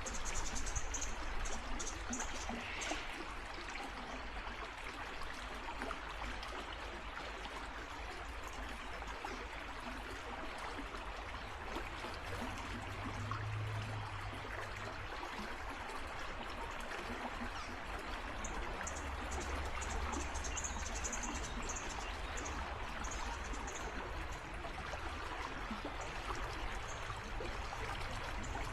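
Creek water flowing steadily. Runs of short, high-pitched chirps come in at the start and again about two-thirds of the way through.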